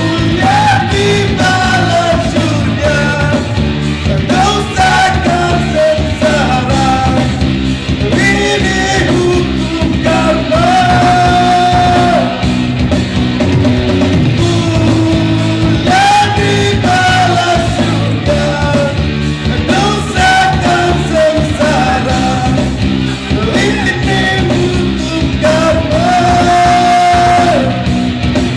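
Rock song sung as a cover by a singer over a rock band accompaniment, the voice holding two long notes, about a third of the way in and near the end.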